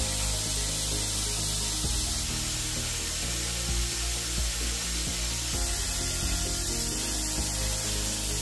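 Handheld plasma cutter hissing steadily as it cuts a strip of steel sheet along a clamped straightedge. Background music plays underneath.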